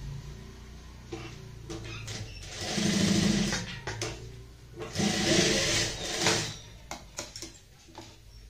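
Industrial single-needle sewing machine stitching through folded fabric in two short runs of about a second each, a couple of seconds apart, with a low motor hum between them. A few light clicks follow near the end.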